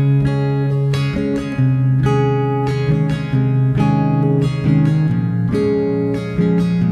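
Background music: acoustic guitar plucking a gentle melody in a steady rhythm.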